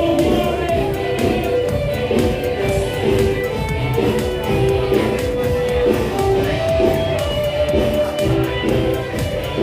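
Live or amplified dance music with guitar over a steady beat.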